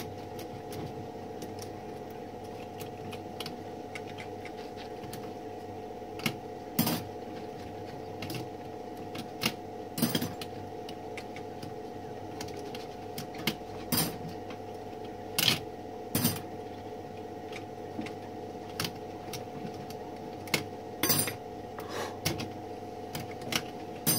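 Irregular metallic clicks and clinks of small tools against typewriter parts, about a dozen over the stretch, over a steady hum.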